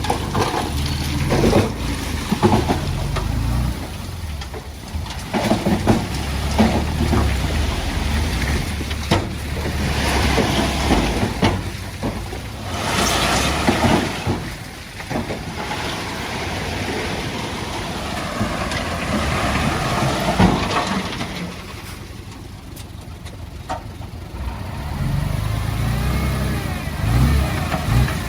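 Heavy diesel earthmoving machinery at work: an engine running, louder and softer by turns, with scattered knocks and a rushing noise near the middle.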